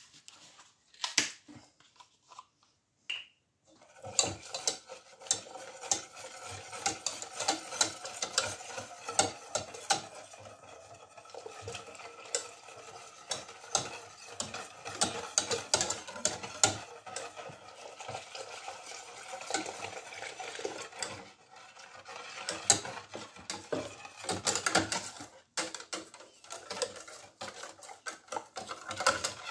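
Wire balloon whisk beating a thin milk-and-cornstarch custard mixture in a stainless steel pot, the wires clinking and scraping against the pot's sides. A few separate clinks come first, then from about four seconds in, continuous rapid whisking.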